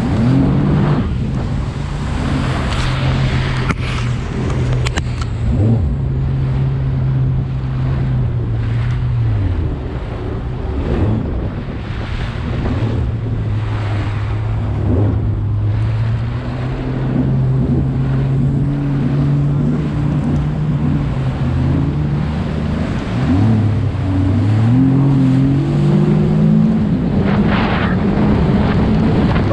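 Freshly rebuilt Sea-Doo GTX personal watercraft engine running under way, its note dropping as the revs fall about ten seconds in and again around twenty-three seconds, then climbing back up. Wind buffets the microphone and water rushes past throughout.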